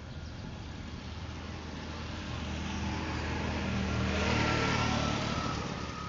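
Intro sound effect: a whoosh over a low steady hum, swelling slowly to its loudest about four and a half seconds in and then fading away.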